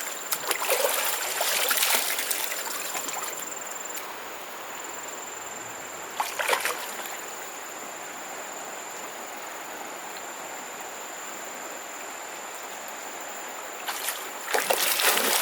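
Shallow river water splashing as people wade and work the water, over a steady hiss of flowing water. A burst of splashes near the start, one short splash around the middle and more splashing near the end.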